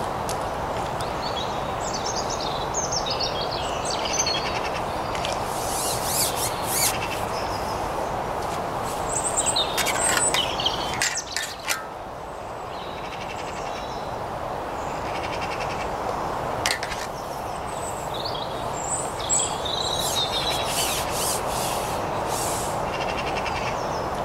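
Small songbirds chirping and singing on and off over a steady distant motorway drone, with a few sharp clicks about halfway through.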